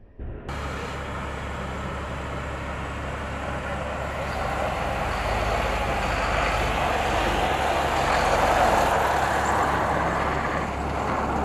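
M142 HIMARS truck's diesel engine running as the vehicle drives, a steady rumble with a wide rushing noise over it. It cuts in suddenly just after the start and grows louder through most of the stretch.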